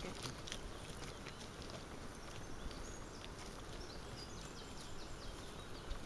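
Steady outdoor background noise, with a few faint, short high bird chirps in the second half.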